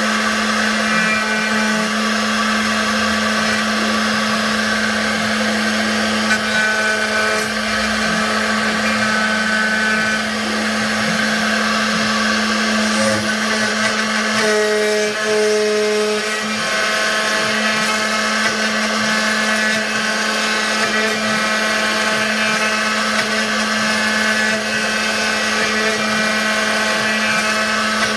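CNC router spindle running steadily while cutting wood, a constant hum and hiss, with the stepper motors' short whining tones coming and going as the machine moves along the letters.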